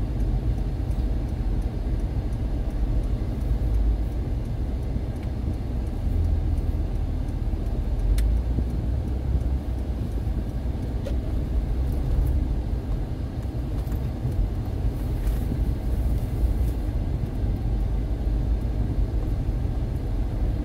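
Car driving along the road: a steady low rumble of engine and tyres, with a few faint clicks.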